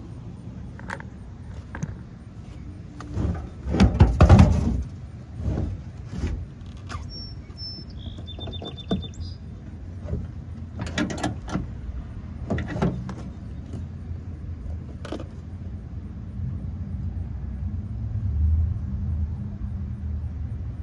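Zero-turn lawn mower engine running steadily, with repeated knocks and clatter on top, loudest about four seconds in. A few short high chirps come around eight seconds in.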